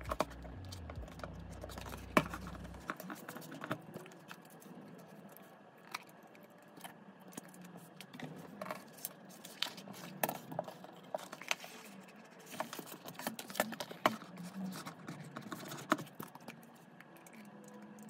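Clear PVC binder covers and A5 ring binders handled on a desk: scattered light plastic clicks and taps with soft rustling.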